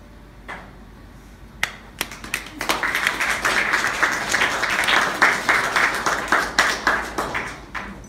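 A few scattered claps, then a small group applauding for about five seconds, dying away near the end.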